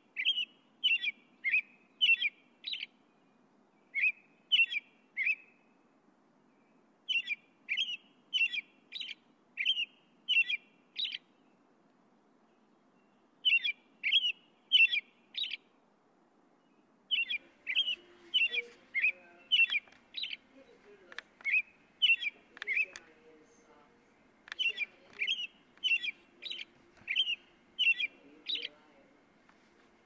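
A songbird calling in bouts of short, sharp chirps, about two a second, several in a row and then a pause, over and over.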